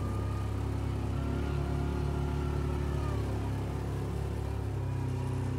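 Off-road vehicle engine running steadily at low revs, heard from inside the vehicle as it drives slowly along a dirt track.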